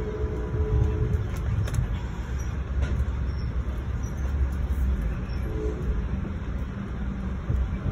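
Passenger train car rolling along, heard from inside: a steady low rumble with a few faint clicks.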